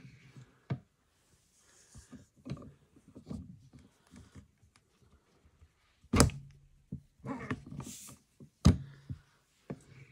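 A button badge maker and its small parts being handled and set in place: soft rattles and taps, with two sharp knocks about six and eight and a half seconds in.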